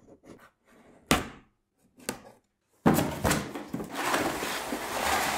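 A folding knife slitting the tape on a cardboard box: a few short cuts and taps, one louder knock about a second in. About three seconds in, a cardboard box slides out of its outer cardboard box with a continuous scraping rustle.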